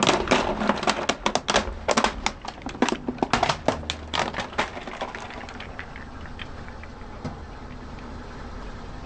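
Hard plastic toy vehicle and building blocks cracking and snapping under a slowly rolling car tyre: a rapid, irregular run of sharp cracks that thins out after about five seconds, with a low steady rumble underneath.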